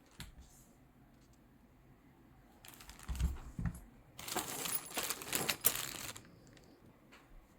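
Handling noises: crinkling and clattering with many small clicks, and two low thumps a little over three seconds in.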